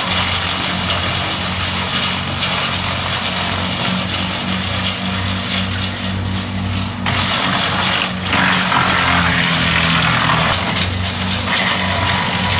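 TP 215 tracked wood chipper running steadily as branches are fed in and chipped, the wood-shredding noise growing louder from about seven seconds in.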